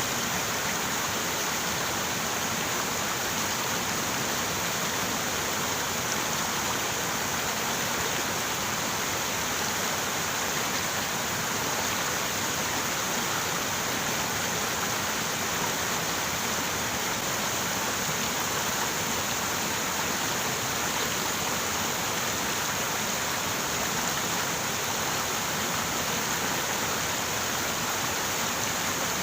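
River water running over rocks: a steady, even rush with no pauses or changes.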